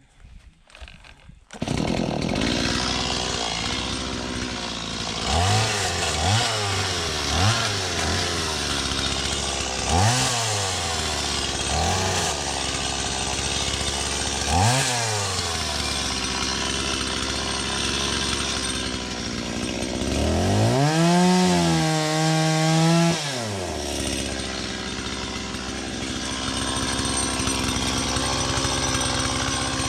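Chainsaw engine coming in abruptly just under two seconds in, then idling with a string of short throttle blips. Around two-thirds of the way through it is held at high revs for about two seconds before dropping back to idle.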